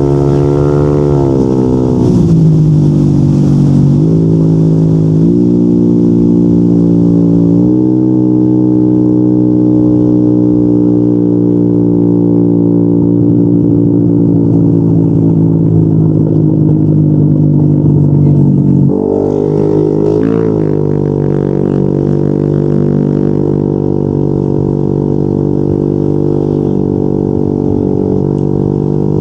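Yamaha NMAX 155 scooter's single-cylinder engine running through an aftermarket Yoshimura RS2 exhaust while riding. Its pitch climbs in several steps over the first few seconds, then holds and slowly sags. It drops sharply about two-thirds of the way in as the throttle eases, then runs steady at a lower pitch.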